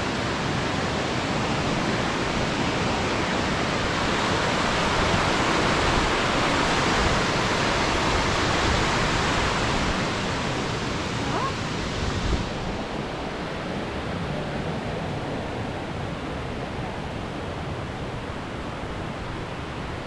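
Mountain stream rushing over rocks: a steady hiss of water that swells for a while, then grows duller and softer about twelve seconds in.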